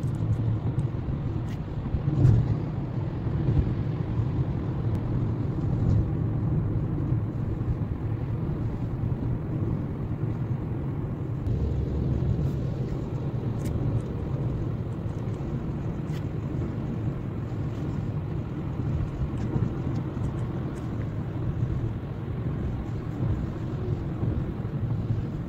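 Steady low rumble of a car driving on a wet road, heard from inside the cabin: tyre and road noise, with a few faint ticks.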